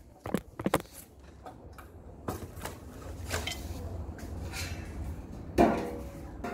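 Hand-work clatter: a few sharp clicks and light knocks, then a low steady hum that comes in about two seconds in. Near the end comes a loud knock with a brief metallic ring.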